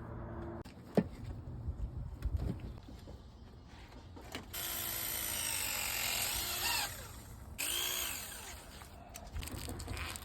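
Power drill running in two bursts, a longer one and then a short one, its whine rising and falling; a few sharp knocks come before it.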